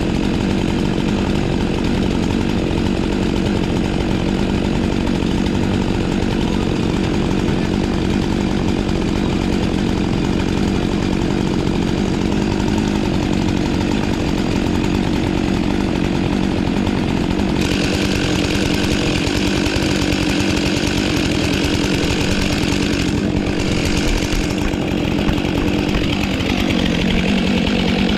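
Two-stroke chainsaw running at high revs without let-up, its sound turning brighter about two-thirds of the way through.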